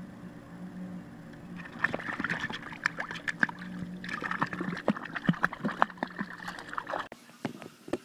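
A cat plunges into a swimming pool about two seconds in and splashes about in the water, a busy run of splashes and slaps that cuts off abruptly near the end. Before the plunge there is only a steady low hum.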